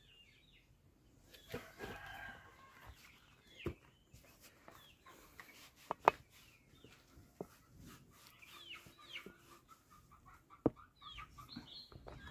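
Faint clucking of chickens with short bird calls. Over this come a few sharp crackles and taps from the dry arecanut leaf-sheath cap as it is handled and put on; the loudest crackle comes about six seconds in.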